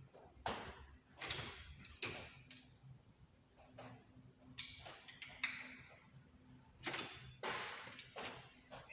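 Metal tools scraping, clinking and knocking as someone rummages in a rolling tool chest. It comes as a string of short, irregular clatters, each a fraction of a second long.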